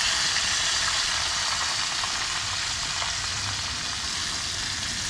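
Whole redfin perch frying in oil in a metal mess tin: a steady sizzle that eases slightly in loudness.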